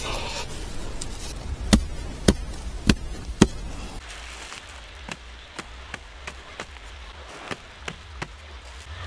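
Axe chopping wood: four heavy strokes about half a second apart, then a run of lighter, quicker strokes.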